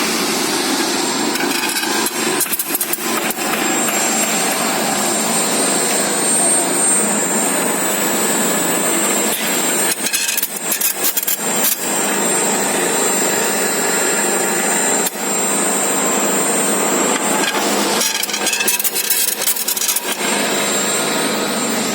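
SGR SBTF-1500K spiral duct machine running, winding sheet-metal strip into spiral duct with a steady, loud mechanical noise and a faint high whine. The noise breaks into stretches of rapid clattering three times: about two seconds in, around ten seconds in, and near the end.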